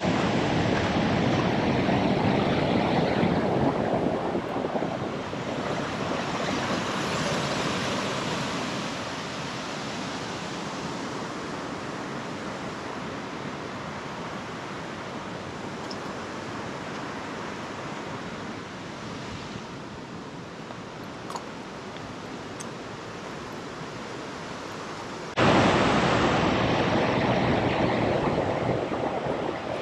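River water rushing over rapids in a rocky gorge: a steady, even rush that jumps suddenly louder near the end.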